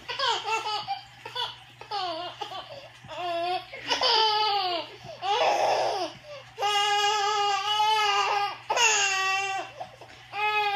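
A baby making a run of high-pitched squeals and laughing sounds, many of the calls falling in pitch, with one long held squeal about seven seconds in.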